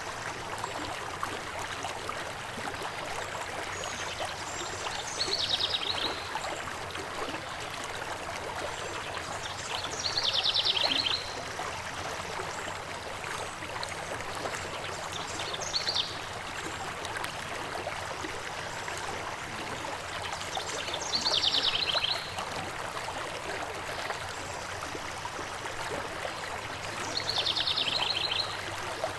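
River water flowing steadily. Over it a songbird repeats a short, rapid trill about every five to six seconds, five times in all.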